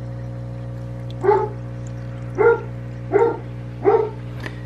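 A dog barking four times in short single barks, starting a little over a second in, the last three closer together. A steady low hum runs underneath.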